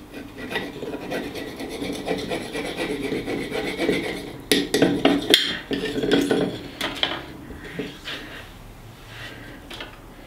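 Table knife sawing back and forth across a rock on a plate, a steady rasping scrape. A few sharp clicks of metal striking come about halfway through, and the scraping eases off near the end.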